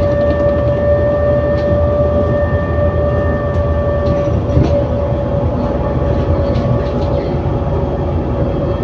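An ADL Enviro400 City double-decker bus with a Voith automatic gearbox running along, heard from on board. There is a low drivetrain rumble and a steady whine; the higher parts of the whine die away about halfway through. Faint rattles can be heard in the cabin.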